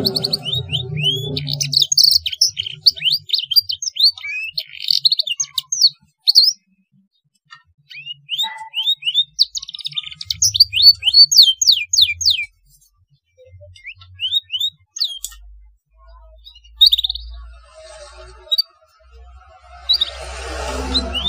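Canary singing a song filled with blackthroat (black-throated canary) phrases: fast runs of high down-slurred notes and trills in bursts, broken by short pauses.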